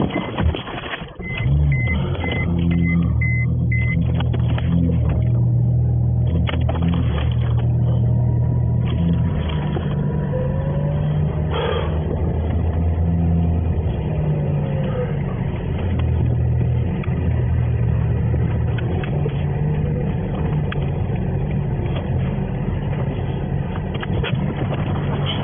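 Tow truck's engine running with a steady low drone under load. A series of short, evenly spaced high beeps sounds over it in the first few seconds.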